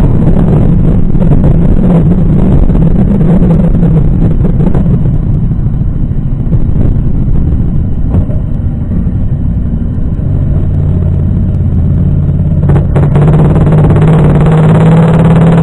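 Motorcycle engines running on the road, heard from a moving motorcycle. The engine drone is steady, with a lower steady engine note coming in about ten seconds in.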